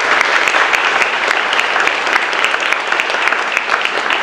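Audience of a few dozen people applauding, many hands clapping at once in a steady patter.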